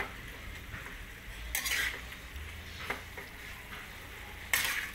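A metal spoon stirring pieces of beef in a metal pan, scraping against the pan. Two louder scrapes come about one and a half seconds in and near the end.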